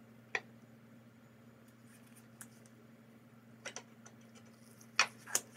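A handful of sharp clicks and light taps as a perforated 3D-printer build platform with a resin print on it is handled and set into a homemade part-separation tool, the two loudest near the end, over a faint steady low hum.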